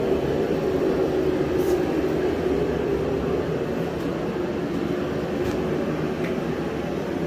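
A steady low mechanical hum that holds at an even level throughout.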